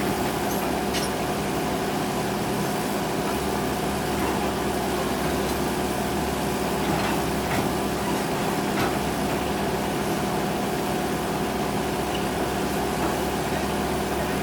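Excavator diesel engine running steadily at an even, unchanging speed.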